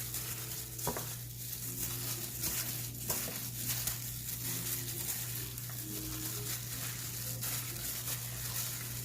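A gloved hand mixing dry rub seasoning into raw, wet chicken wings in a baking pan: soft squishing and rubbing with a few light knocks against the pan, over a steady low hum.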